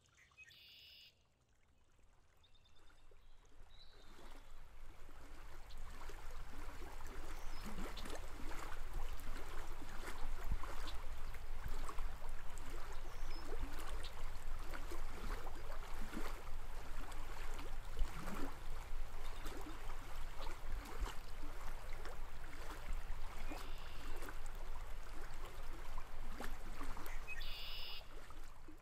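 Running water of a small stream, a steady rush full of small irregular splashes, fading in over the first several seconds.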